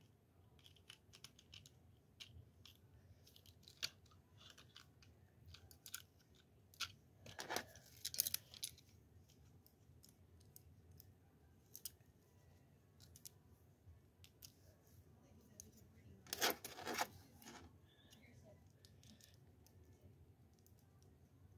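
Quiet handling noises of a plastic doll and its hair against a clear plastic tube: scattered small clicks and rustles, with a few louder rustling scrapes about seven to eight seconds in and again around sixteen to seventeen seconds.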